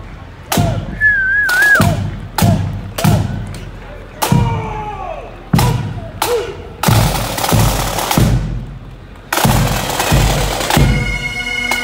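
A marching pipe band's drums: bass drum beats with snare strokes about once a second, then two long snare drum rolls, and the bagpipes strike up near the end.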